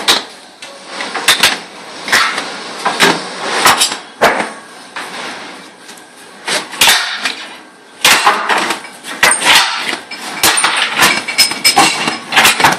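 Hand-pumped hydraulic engine hoist being worked to lift an engine and gearbox: a run of sharp metallic clanks and clicks from the handle and ram, thicker in the second half.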